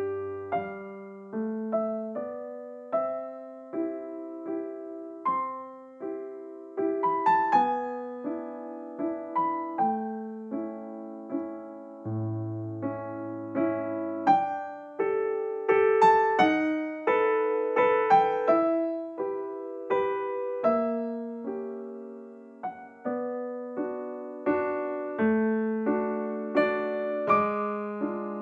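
Background music: a gentle piano melody with chords, each note struck and dying away.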